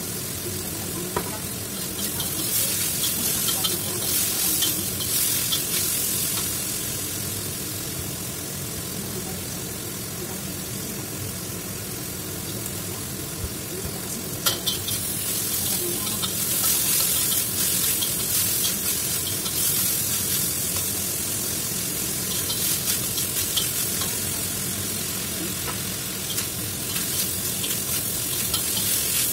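Chicken pieces sizzling as they are stir-fried in a wok, with a metal spatula scraping and clicking against the pan. The sizzle swells louder in two stretches, and there is one sharp knock of the spatula about halfway.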